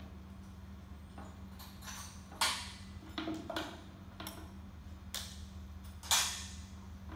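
Metal clanks and clicks of tools and hardware being handled on a steel-and-aluminum trailer during an installation, with two sharp clanks that ring briefly, about two and a half seconds in and again near the end, and lighter ticks between them, over a steady low hum.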